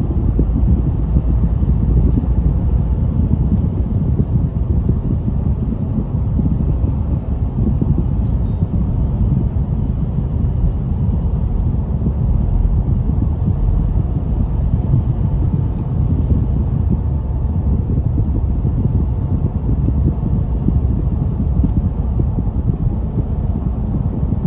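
Steady low rumble of a car driving along a freeway, tyre and engine noise heard from inside the cabin.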